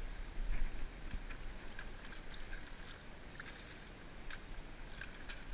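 Water lapping and trickling among lava-rock tide pools, under a steady low rumble, with scattered light clicks and taps from footsteps and gear on the rock.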